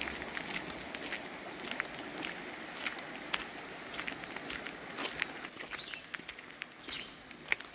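Footsteps on a hiking trail, irregular crunching steps, over a steady rushing background noise that fades after about five seconds.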